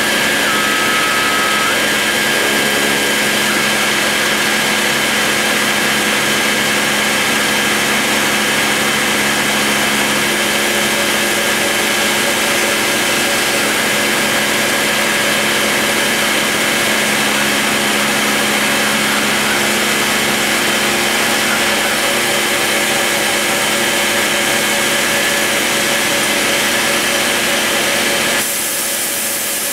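Dremel rotary tool running at high speed and routing a slot in MDF, a steady whine with cutting noise. Near the end the tone changes and the hiss grows brighter.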